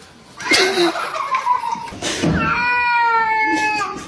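A domestic cat yowling: one long, drawn-out caterwaul in the second half, its pitch sliding slightly down. A sudden loud noise comes about half a second in, before the call.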